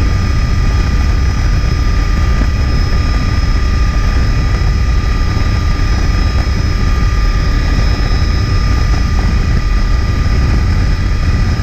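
Tour helicopter in flight: a loud, steady drone of rotor and engine with a constant whine over it.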